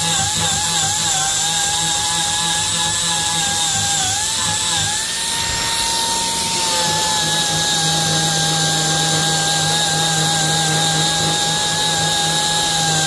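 Angle grinder with an 80-grit sanding disc running against a steel weld, blending it smooth. Its motor whine wavers and sags in pitch as the disc is pressed into the work. About five seconds in it rises briefly as the load eases, then settles a little lower and steadier.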